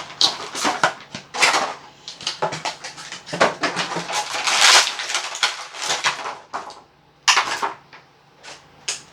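Plastic packaging and a plastic action figure being handled: irregular rustling and light clattering, thinning out near the end.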